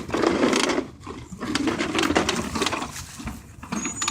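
Toy lawn mower being pushed, its mechanism rattling and clicking in three spells of about a second each.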